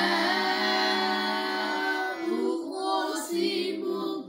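A single voice chanting Quranic recitation in long, drawn-out held notes, the pitch stepping a few times.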